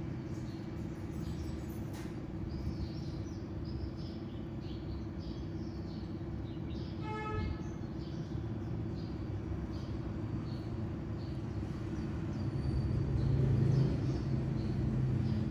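Steady low background hum with small birds chirping now and then. A single short squeak comes about seven seconds in, and a deeper low rumble swells briefly near the end.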